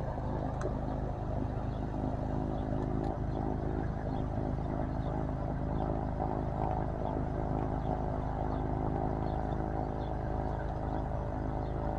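Cessna Caravan's PT6 turboprop running steadily at idle on the ramp: a constant engine drone over a low rumble.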